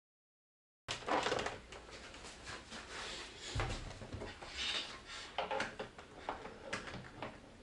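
Dead silence for about the first second, then handling sounds of a monitor being set up: irregular clicks, taps and rustling as cables are worked behind the screen, with a dull thump about three and a half seconds in.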